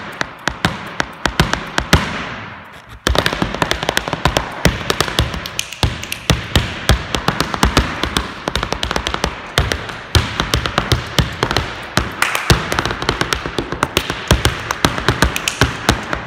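Rapid, irregular stamping and tapping of heeled dance shoes on a hard floor, a dense run of sharp strikes several a second. It thins briefly about two seconds in, then comes back stronger.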